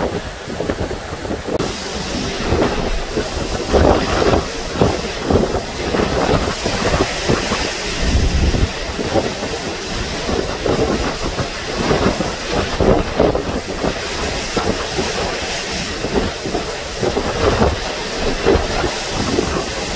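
Hurricane-force wind and driving horizontal rain: a loud, continuous rushing noise that surges with each gust, with deep rumbles in the strongest gusts.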